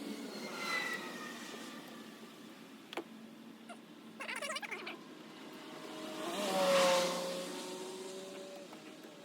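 A passing car: its sound swells and fades with a falling pitch, loudest about seven seconds in, while another vehicle's sound is already fading away at the start. A sharp click about three seconds in and a brief rattle about a second and a half later.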